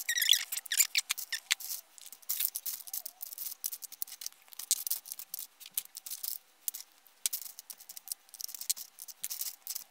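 Plastic lipstick and lip-gloss tubes clicking and clattering against one another as a hand rummages through a basket full of them: an irregular run of small, light clicks.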